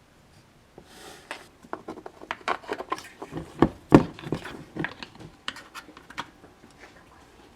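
Close handling noise of small parts: an irregular run of clicks, knocks and scraping, with the loudest knock about four seconds in.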